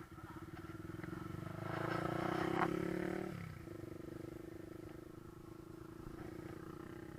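Motorcycle engine running steadily, with a louder stretch about two to three and a half seconds in that fits the front brake being applied. The front brake is dragging and noisy, its pads worn out.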